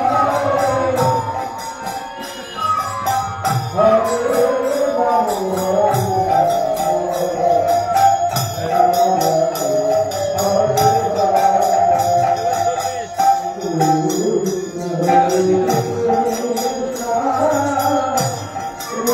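Naam kirtan: voices chanting a devotional song in unison, kept in a steady rhythm by jingling hand cymbals.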